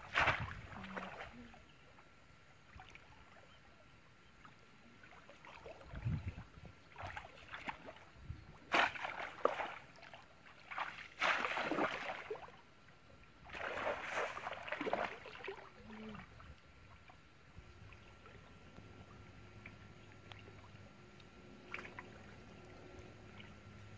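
Muddy water splashing and sloshing as someone wades through a shallow ditch and plunges a bamboo fish trap into it. The splashes come in irregular bursts through the first two-thirds, then it goes quiet.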